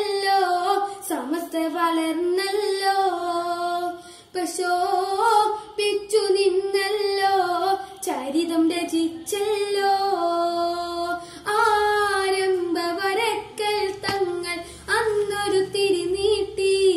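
A boy singing a Malayalam song, one voice carrying the melody in long, sliding phrases broken by short pauses.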